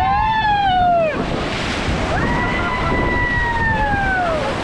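Rushing whitewater splashing around a raft, with rafters yelling over it: a short falling yell at the start, then a long held yell from about two seconds in that drops away near the end.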